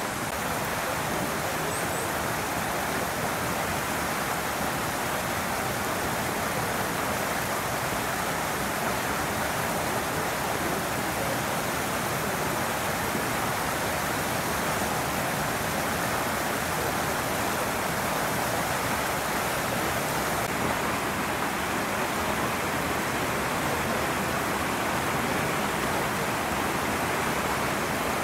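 Steady, even rushing noise with no distinct sounds in it.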